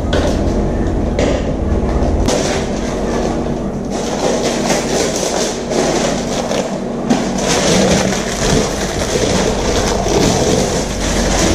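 Clear plastic wrapping crinkling and rustling as it is pulled off a wire oven rack, over a steady low hum.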